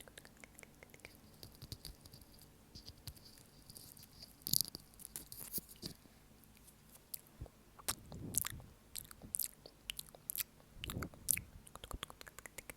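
Close-miked ASMR mouth sounds: irregular wet clicks and smacks of the lips and tongue, with a few louder smacks spread through.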